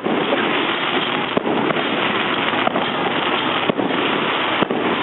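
Fireworks display: about four sharp bangs, irregularly spaced, over a continuous dense crackling noise.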